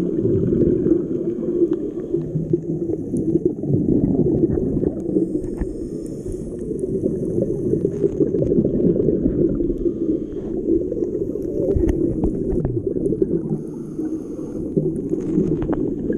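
Underwater sound picked up by a camera in a waterproof housing: a dense, muffled low rush and gurgle of water, with scattered sharp clicks and a faint high whine.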